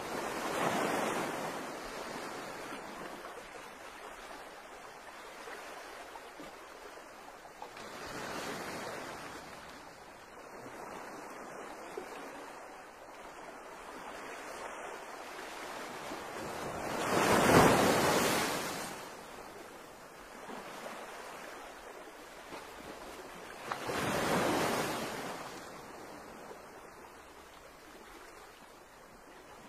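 Seaside wind and water noise: a steady hiss that swells four times, each swell lasting a second or two, the loudest about two-thirds of the way through.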